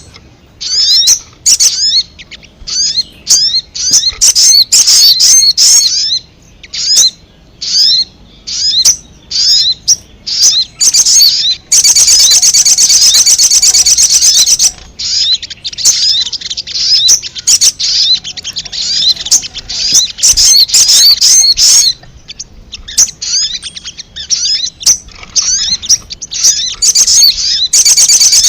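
Young brown-throated sunbirds (sogok ontong) calling with rapid, high, loud chirps in short bursts. About twelve seconds in, and again near the end, the chirping runs on without a break for a few seconds.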